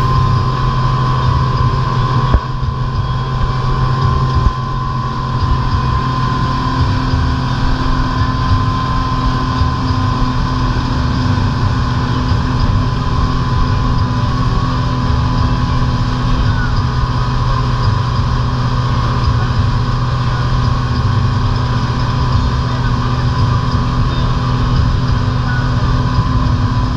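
Twin outboard motors of a fishing boat running steadily at cruising speed, a constant engine drone over the rush of wind and water from the boat's wake.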